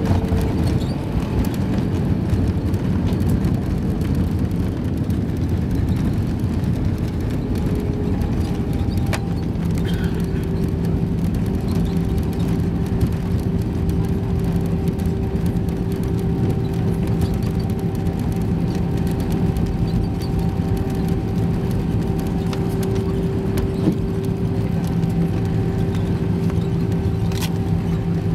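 Airbus A320 cabin noise over the wing during landing and rollout: a steady rumble of engines and rushing air. About nine seconds in there is a brief knock, after which a steady engine hum sets in and holds.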